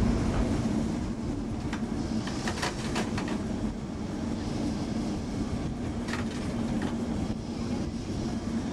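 Lisbon tram running along street track, heard from inside the car: a steady motor and running hum, with a cluster of sharp clicks from the wheels on the rails about two and a half to three seconds in and a couple more about six seconds in.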